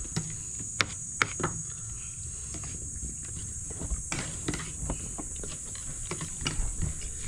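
Scattered light clicks and taps, a few every second, over a steady high-pitched insect chirring.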